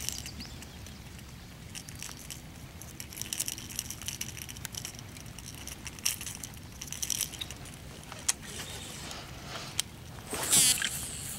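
Fishing gear being handled in a kayak: scattered small clicks and rattles over a low rumble, with a brief louder whirring rattle near the end.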